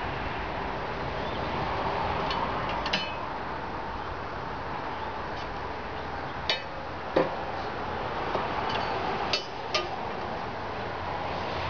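About five sharp, light metallic clinks spread through, as steel parts and clamps on a snow plow frame are handled, over a steady rushing background noise.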